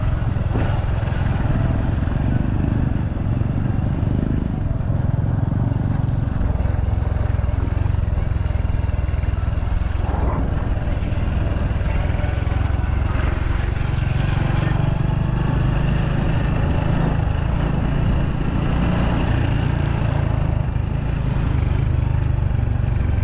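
Steady motor-vehicle engine and road noise, as heard while riding along, with a constant low hum that does not rise or fall.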